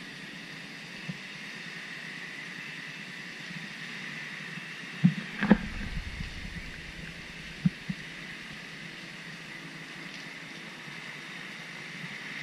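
Steady hiss of rain over the lagoon, with a few dull knocks about five seconds in and again near eight seconds.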